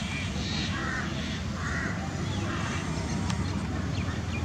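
Crows cawing, a harsh call about every second for the first three seconds and then fading, over a steady low rumble.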